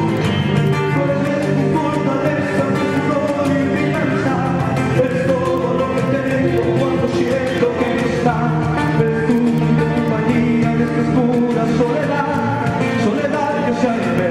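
Music with singing over instruments and a steady beat.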